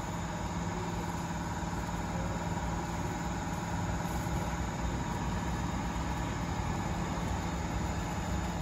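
A steady mechanical hum with a constant low tone and no change in level.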